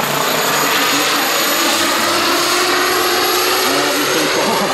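Radio-controlled scale SA-315B Lama helicopter in flight, its model gas turbine running with a steady high whine over the rotor noise.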